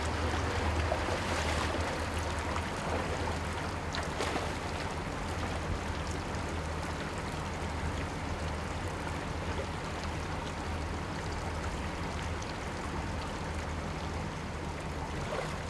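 Water rushing steadily, with a low steady hum underneath.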